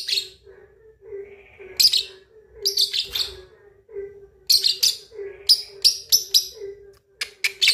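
Young lovebird, about two and a half months old, giving harsh, high chirps in irregular bursts, closing in a quick run of short chirps near the end: a juvenile's early practice at the ngekek chatter song.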